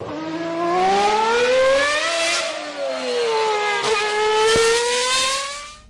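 Car engine revving: the pitch climbs for about two seconds, drops back, climbs again in a second rev and fades out near the end.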